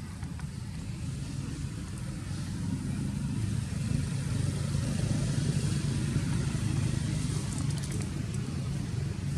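A motor engine running with a steady low rumble, growing louder about four seconds in.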